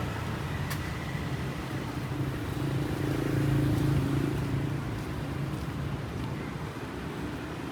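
Vehicle engine running under steady road noise, the low hum swelling louder about three seconds in and easing back down. A single sharp click sounds near the start.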